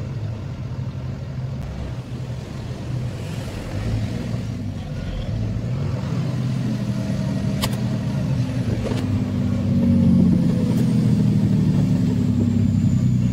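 Kenworth truck's diesel engine running while driving, heard from inside the cab. It pulls louder through the second half, with two sharp clicks near the middle.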